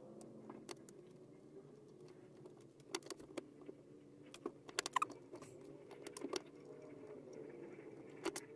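Irregular light clicks and clinks of a small metal gate latch and drawer hardware being handled, a dozen or so, loudest about three and five seconds in.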